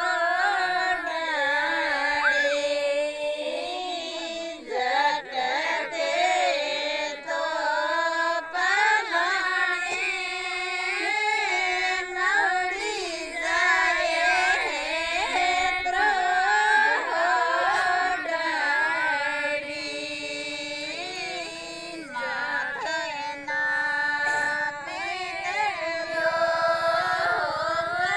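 Women singing a Marwari (Rajasthani) desi folk song of the kind sung for Teej, in a high, melismatic line that carries on through the whole stretch.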